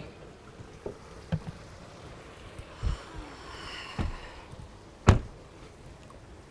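Lexus SUV door being handled and then shut, closing with a single solid thump about five seconds in, after a few lighter knocks and footsteps.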